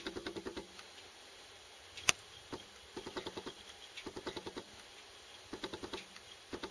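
Short bursts of rapid light clicking, about ten clicks a second, coming in four or five clusters. There is one sharp, louder click about two seconds in.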